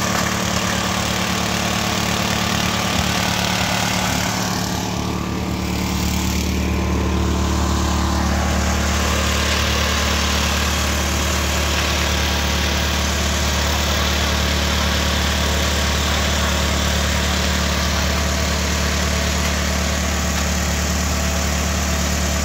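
Engine-driven finger millet threshing machine running steadily while it crushes the grain. About five seconds in the sound dips briefly, then its low hum grows stronger.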